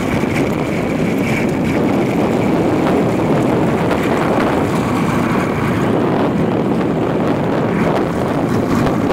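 Small fishing boat's motor running steadily under way, with water rushing along the hull and wind buffeting the microphone.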